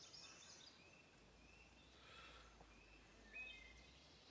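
Near silence with faint bird chirps and calls.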